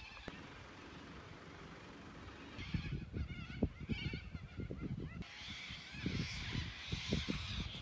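Birds calling a few times in the background, over irregular low thuds of footsteps.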